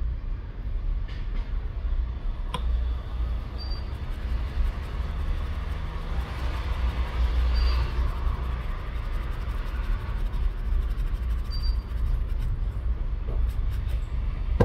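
Steady low rumble throughout, with faint scrubbing of a cleaning brush on the phone's water-damaged connector that grows louder in the middle seconds; the damage is too far gone for cleaning to help.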